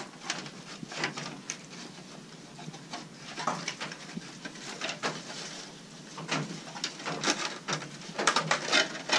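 Aluminium foil windscreen of an MSR Dragonfly stove crinkling and rustling as it is unfolded and handled, an irregular run of crackles that gets busier near the end.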